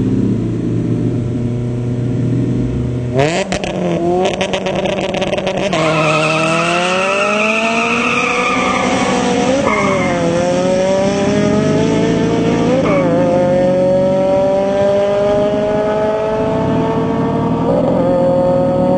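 Drag-racing cars revving at the start line, then launching with a burst of rapid crackles about three seconds in and accelerating hard down the quarter-mile strip. The engine pitch climbs steadily and drops back at each of three gear changes.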